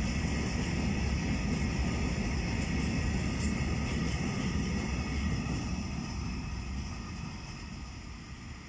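Freight train of open high-sided wagons passing close by: a steady rumble of wheels on rails that fades near the end as the last wagons go by.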